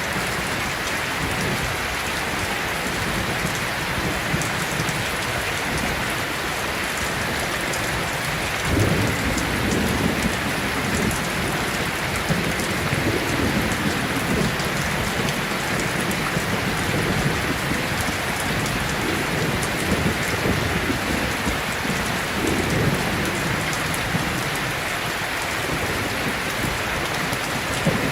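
Steady heavy rain falling, with low rumbles of thunder that swell and fade repeatedly from about nine seconds in.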